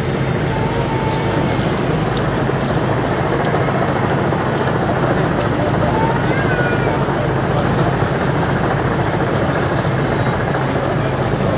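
Steady low hum of a vehicle engine idling close by, under a dense, even wash of street and crowd noise with a few faint distant voices.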